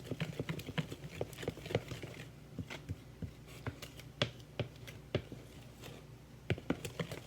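A utensil stirring thick pancake batter in a bowl, knocking against the bowl's side in irregular clicks and taps, a few each second.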